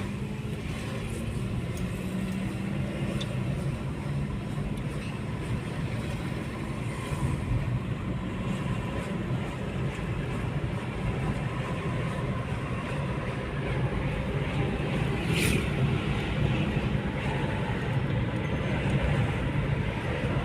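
Steady low rumble of a running road vehicle, with a brief sharp click about fifteen seconds in.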